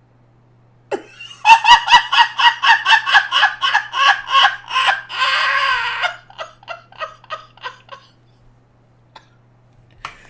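A man laughing hard: a long run of quick 'ha-ha' bursts, about five a second, that swells into a drawn-out breathless stretch and then trails off into fading chuckles.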